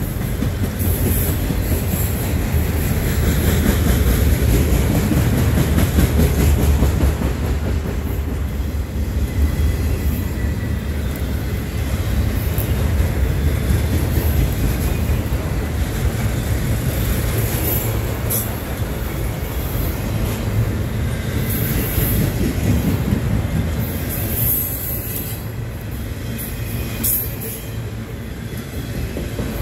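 A freight train of autorack cars rolling past close by: steel wheels on rail make a steady heavy rumble, with a few sharp clicks and a faint high wheel squeal in places.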